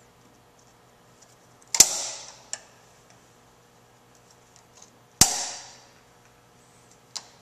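Two sharp metallic snaps about three and a half seconds apart, each with a short ringing tail, and a few small clicks in between. They come from pliers snapping off the metal clamp on a steering rack's bellows boot as it is worked loose.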